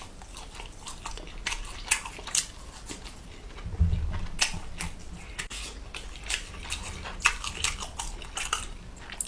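A person eating close to the microphone: irregular crunching and clicking chewing sounds, with a dull low bump about four seconds in.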